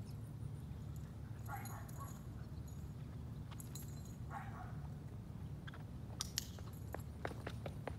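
A husky's claws tapping on a concrete sidewalk as it walks: a quick run of sharp taps starting about six seconds in, over a steady low rumble.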